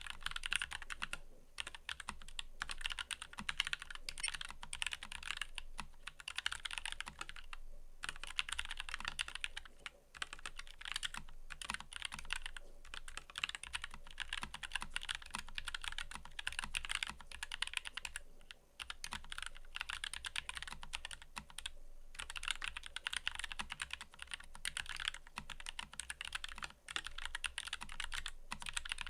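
Fast, continuous typing on a mechanical keyboard, a dense stream of key clicks broken by a few short pauses.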